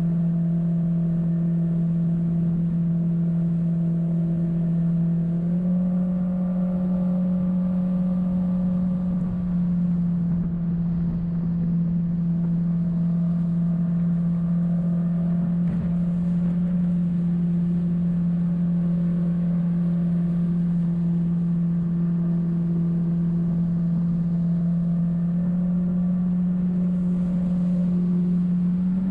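Jet boat engine running steadily under way with a constant drone, its pitch stepping up slightly about five seconds in.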